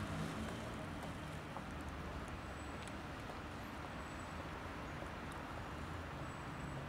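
Steady outdoor background with a low rumble of distant traffic.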